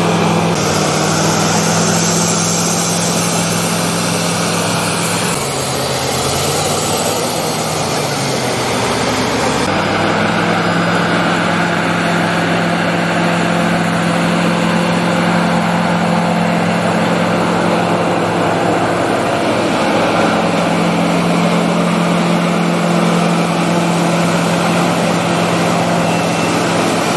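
Heavy diesel engine of a Caterpillar bulldozer running steadily while clearing snow. Its pitch sags for a few seconds about six seconds in, then comes back up.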